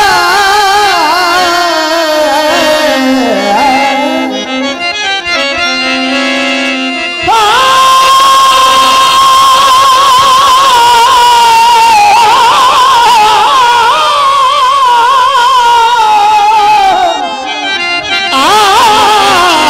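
A man singing a folk song through a PA microphone, over instrumental accompaniment. About seven seconds in he takes up a long, high, slightly wavering held note that lasts several seconds.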